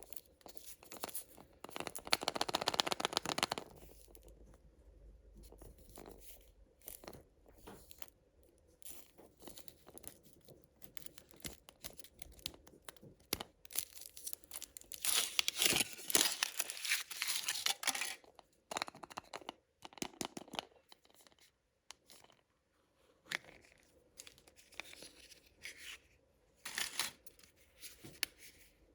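Plastic and foil candy wrappers being torn open and crinkled by hand. There are two longer spells of dense crackling, about two seconds in and again around the middle, with scattered small rustles and clicks between.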